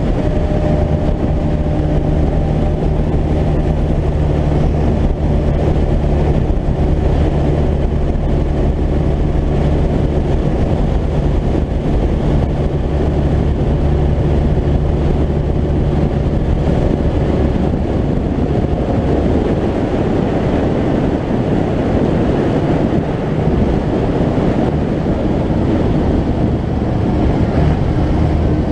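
John Deere 6150R tractor's six-cylinder diesel running steadily at road speed while towing a trailer, a constant engine hum. About two-thirds of the way through, the even hum gives way to a rougher, noisier sound at the same loudness.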